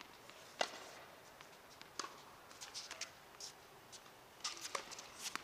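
Sparse sharp taps of a tennis ball and racket on an outdoor hard court. The loudest tap comes about half a second in and another about two seconds in, with a cluster of lighter clicks near the end around the far player's serve.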